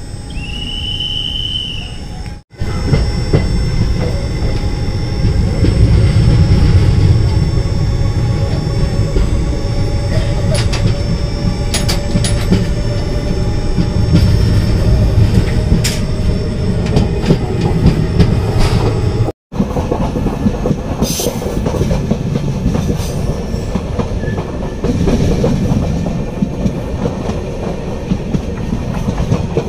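Indian Railways express train running at speed: heavy rumble of coach wheels on the track, with clicks as they pass over rail joints. A short high tone sounds about a second in, and the sound cuts out briefly twice.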